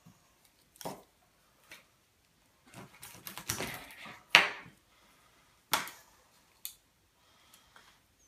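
A string of short knocks and scuffs as a skinned rabbit carcass and its pelt are handled on a wooden worktop. The loudest is a thump a little over four seconds in.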